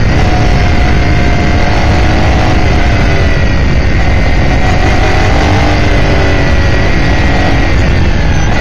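Onboard sound of an S5000 open-wheel race car's Ford 5.0 V8, heard from the cockpit under wind and road noise. The car brakes and changes down from fourth to third, then holds a steady part-throttle note through the corner, its pitch dipping and rising gently.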